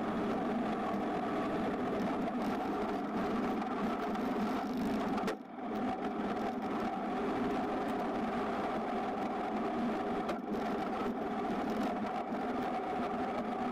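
John Deere 770 compact tractor's three-cylinder diesel engine running steadily while the tractor plows snow. The sound drops out briefly about five seconds in.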